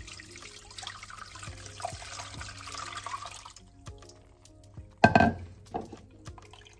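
Liquid pouring into a container, the sound rising in pitch as it fills, then stopping a little past halfway. A loud knock follows about five seconds in, then a lighter one, over soft background music.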